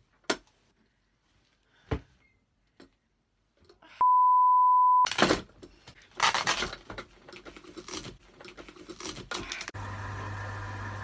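A single steady electronic beep lasting about a second, followed by a few seconds of irregular clattering and knocking, then a steady electrical hum that starts abruptly near the end.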